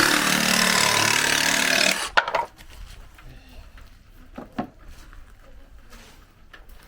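Makita JR187DZ 18V cordless reciprocating saw cutting through 12 mm plywood for about two seconds, then stopping suddenly; a few light knocks follow.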